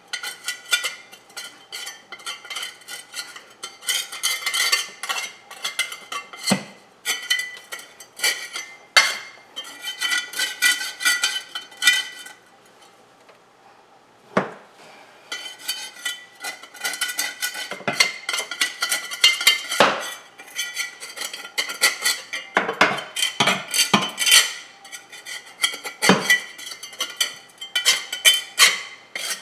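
Scraping, rubbing and clinking of cleaning work on the floor under a refrigerator, a quick string of small knocks and scrapes with a slight metallic ring, pausing for a couple of seconds about halfway through.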